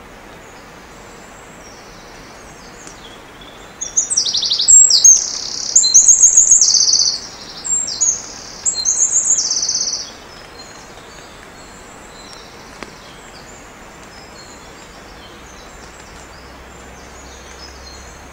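A bird singing several quick, high-pitched trilled phrases, from about four seconds in to about ten seconds in, over a faint steady hiss.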